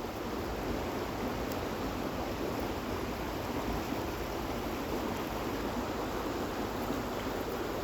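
Steady rush of flowing water, an even noise with no separate events.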